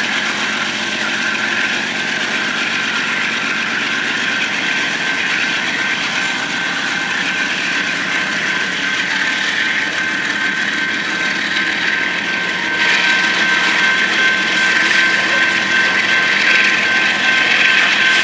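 GE Dash 9-44CW diesel-electric locomotives working under power, their 16-cylinder diesel engines running with a steady high-pitched whine over the engine noise. The noise grows louder about 13 seconds in.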